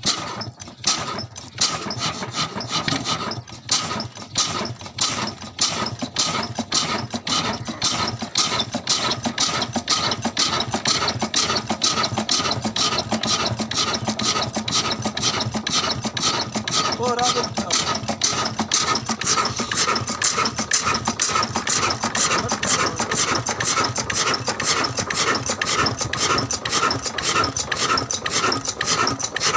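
Old black 20 hp single-cylinder desi diesel engine with a large flywheel, just started: its beats come slowly at first and quicken over the first ten seconds or so, then settle into a steady fast running beat.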